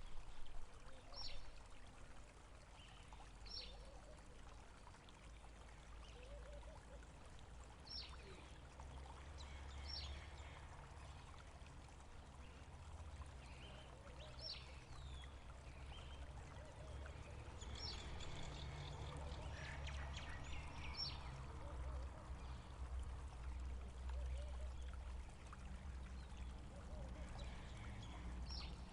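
Faint running water with a low rumble, and a small bird calling short, high, falling chirps every second or two.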